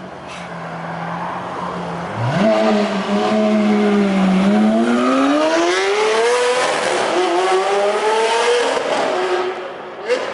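Lamborghini Aventador's V12 exhaust under hard acceleration: the note jumps up about two seconds in, climbs steadily in pitch, drops at an upshift and climbs again, then fades as the car pulls away.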